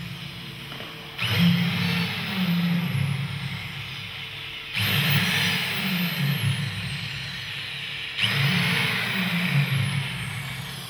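Electric drill spinning a crumpled sheet in its chuck: the motor whirs up suddenly three times, each time slowly winding down, with the spinning sheet flapping and hissing over a wobbling low hum.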